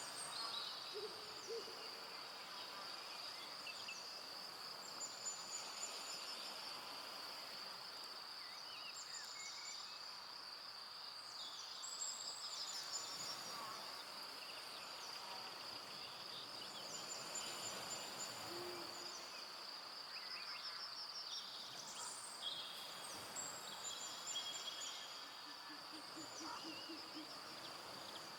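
Forest evening ambience: a steady high-pitched insect trill throughout, scattered short bird chirps, and a few low hooting calls, the last a quick series near the end.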